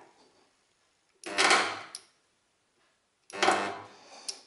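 Resistance spot welder firing on car-body sheet steel: two short buzzing, crackling weld pulses, each under a second and about two seconds apart, each ending in a sharp click.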